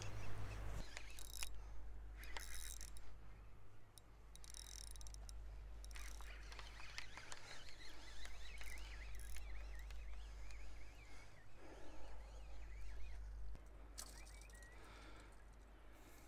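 Quiet shoreline ambience with faint shorebirds calling in wavering chirps, twice over a few seconds, under a low steady rumble of wind or distant surf. Scattered short clicks and knocks of line and reel handling are mixed in.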